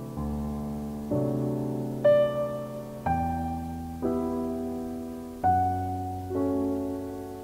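Slow piano music: a new chord is struck about once a second and left to ring and fade.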